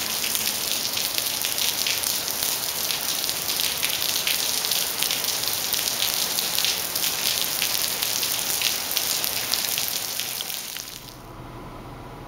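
Steady rain falling on a wet paved terrace, an even hiss full of fine crackling drop hits. About eleven seconds in it cuts off abruptly to a faint steady hiss.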